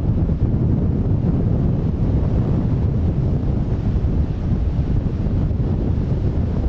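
Strong wind buffeting the microphone with a steady low rumble, and sea waves washing underneath.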